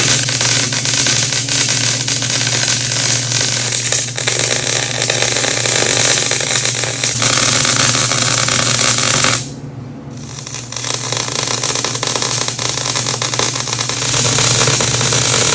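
Electric arc welding on steel: a steady crackling hiss from the arc over a low hum. The arc stops about nine and a half seconds in and starts again about a second later.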